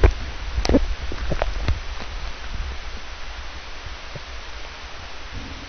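Muffled underwater noise picked up by a submerged camera in the sea: a steady hiss over a low rumble, with a few short knocks in the first two seconds.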